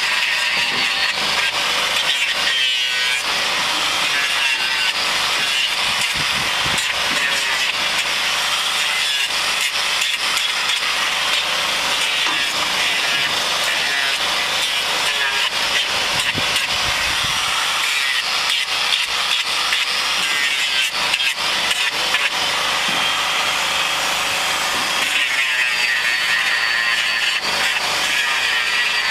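Hand-held grinder with a trimming disc grinding down a cow's hoof horn during hoof trimming: a steady, rasping grinding noise that shifts in tone a little as the disc is worked over the hoof.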